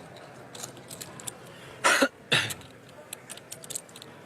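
A person coughing twice in quick succession, about two seconds in, over a steady low room background with scattered light clicks.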